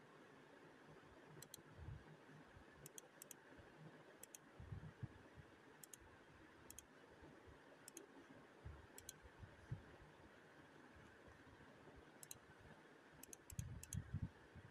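Near silence: faint room hiss with scattered faint, very short ticks, several close together near the end, and soft low bumps.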